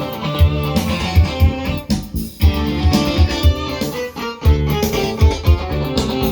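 Korg X3 synthesizer workstation playing one of its factory demo songs: a full multi-part arrangement over a steady beat, with brief breaks about 2 seconds and about 4 seconds in.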